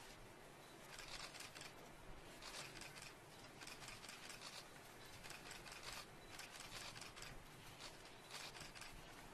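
Near silence: faint, irregular hiss and soft crackle.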